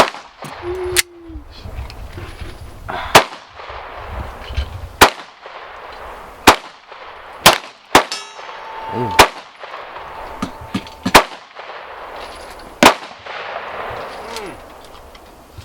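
Single pistol shots in slow, deliberate fire, about nine over the stretch, one to two seconds apart, from a Beretta 92X Performance 9mm competition pistol.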